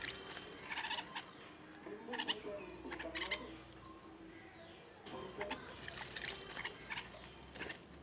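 Bulbuls bathing in a shallow terracotta bird bath: short splashy bursts of wings beating in the water, several in quick clusters, with a few brief bird calls.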